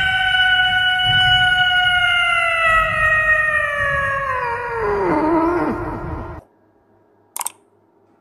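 Domestic cat letting out one long, drawn-out yowl into a microphone, held on a steady pitch, then sinking and breaking off about six seconds in. A short click follows near the end.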